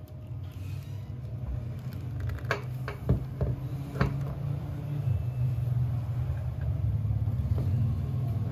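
A few sharp plastic clicks and knocks, a cluster between about two and a half and four seconds in and one more near the end, as a plastic anime figure is pressed down and fitted onto its display base. A steady low hum runs underneath.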